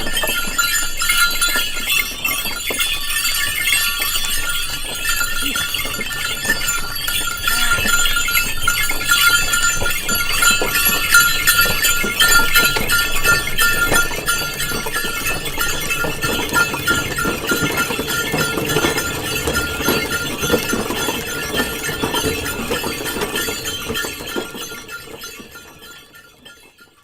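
A bullock cart passing by, its bells jingling continuously over the clatter of the cart on a rough road. It grows louder towards the middle and fades away near the end.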